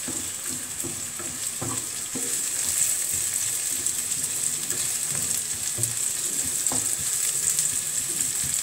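Sliced onions sizzling in hot oil in a frying pan, a steady hiss, with irregular soft scrapes and taps from a wooden spatula stirring them.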